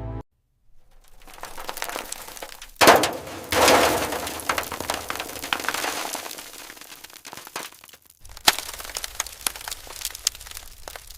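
An old toy car being handled and worked on: crackling and cracking noises with a sharp crack about three seconds in, then a run of small sharp clicks and taps.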